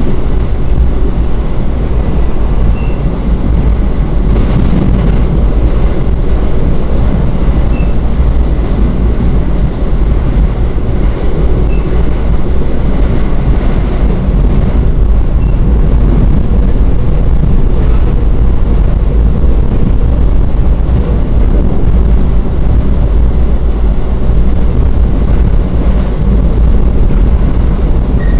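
Steady running noise of an NJ Transit Atlantic City Line passenger train heard from on board while under way, a constant deep rumble with rushing noise above it.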